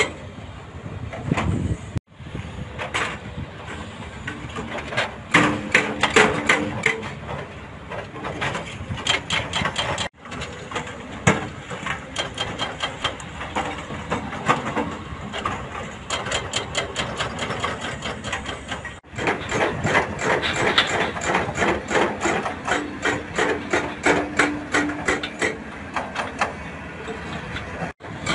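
Hydraulic breaker on a Doosan excavator pounding rock in rapid blows, several a second, over the excavator's running diesel engine. The hammering cuts off abruptly and resumes three times.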